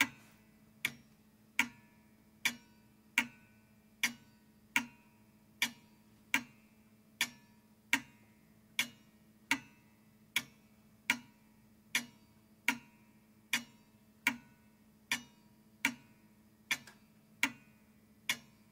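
Clock ticking steadily, a little more than one tick a second, over a faint low hum.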